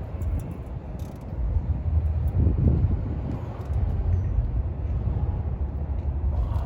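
Wind buffeting the microphone outdoors: an uneven low rumble that swells and eases, with a few faint clicks.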